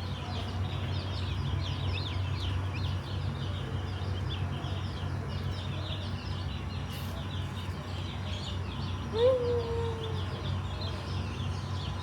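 Many small birds chirping continuously over a steady low hum; about nine seconds in, a single louder call rises and then falls away over about a second.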